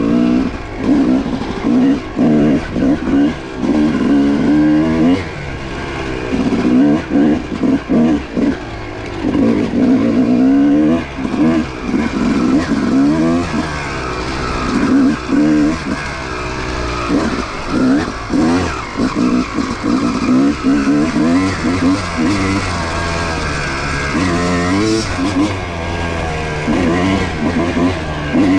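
Yamaha YZ250 single-cylinder two-stroke dirt bike engine riding a trail, revving up and dropping back again and again as the throttle is worked on and off.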